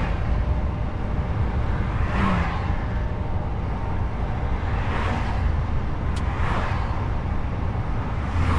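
Truck driving on the road: a steady low rumble of engine and tyres, with four swelling whooshes over it.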